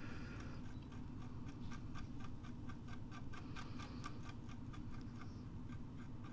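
Wooden cotton-swab stick scraping and dusting corrosion off the metal rangefinder mechanism of a Canon Canonet camera: a fast run of faint light ticks, several a second.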